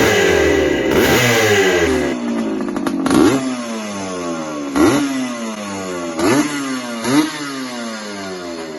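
Montesa Capra two-stroke single-cylinder motorcycle engine revved in sharp throttle blips, the revs jumping up and then falling away between blips, about half a dozen times.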